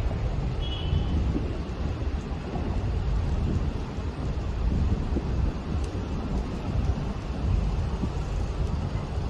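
A 1956 Ford F100 pickup's engine running at idle, a low steady rumble, with a brief high chirp about a second in.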